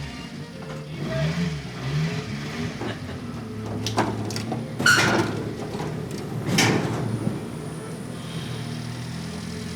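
Subaru Sambar kei truck's small engine idling steadily through its exhaust, with two quick revs about a second in. Several sharp clunks come between about four and seven seconds in.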